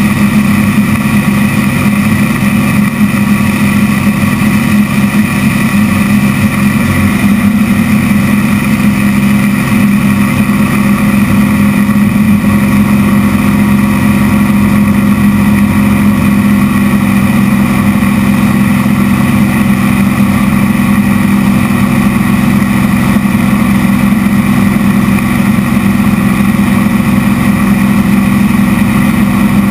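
Zlin aerobatic plane's piston engine and propeller running steadily and loudly, heard from inside the closed cockpit.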